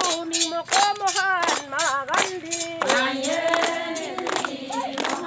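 Group of women singing a ponung folk song while clapping their hands in a steady rhythm, about two claps a second.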